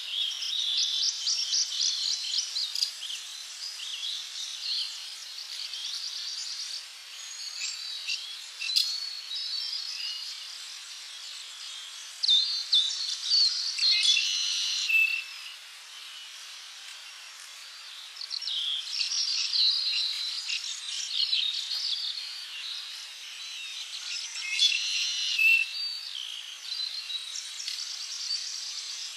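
A chorus of birds chirping and trilling in overlapping rapid high calls, busiest at the start, in the middle and again in the last third, over a steady high hiss of insects or ambience.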